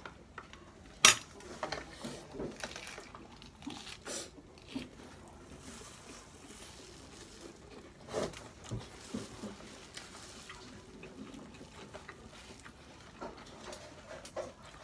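Eating sounds: chewing a lettuce wrap of palabok noodles, with scattered clinks and taps of cutlery on dishes. The sharpest clink comes about a second in.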